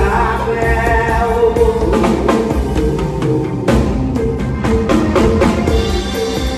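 A live band playing through a club PA: drum kit hits over sustained band tones, with a man singing into a microphone during the first couple of seconds.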